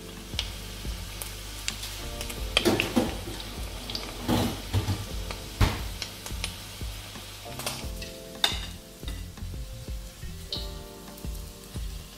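Egg-and-flour coated squid rings shallow-frying in hot oil in a frying pan, sizzling steadily, with several sharp clicks and clatters of tongs against the pan.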